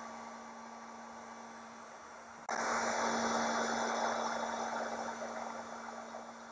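Heat gun blowing a steady hiss with a hum while shrinking heat-shrink tubing over wire ends. About two and a half seconds in it suddenly gets louder, then slowly eases off.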